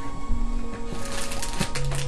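Background music: held notes that step from one pitch to another over a busy, clicking beat that thickens about halfway through.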